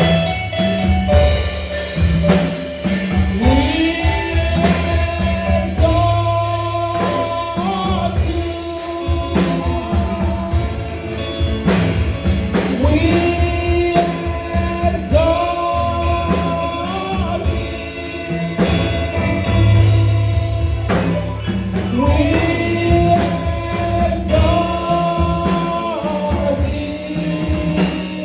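Gospel praise-and-worship music: voices singing long held phrases over a band with drum kit and sustained low bass notes.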